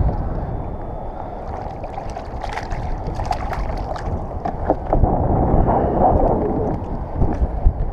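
Wind buffeting the microphone and choppy water lapping against a kayak hull, a steady low rushing, with scattered short clicks and knocks in the middle and a slight swell in loudness about five seconds in.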